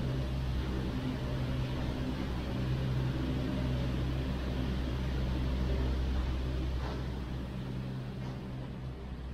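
Steady low mechanical hum of cable car station machinery, with a hiss over it, growing a little fainter near the end.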